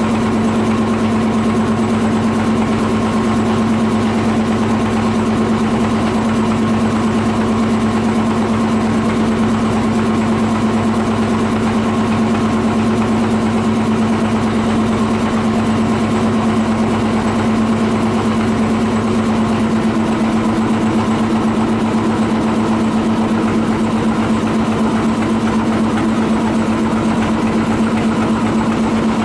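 Boat engine running steadily at an even, low speed, a constant droning hum with no change in pitch.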